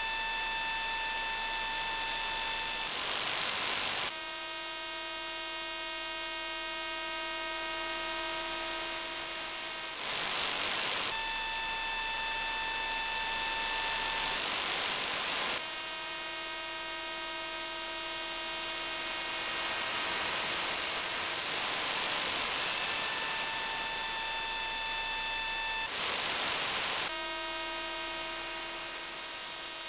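Shortwave signal on 28.6 MHz demodulated in upper sideband by a software-defined radio: a steady buzz of evenly spaced tones, broken several times by bursts of hiss about a second long. The uploader takes the signal for an over-the-horizon radar or an ionosonde.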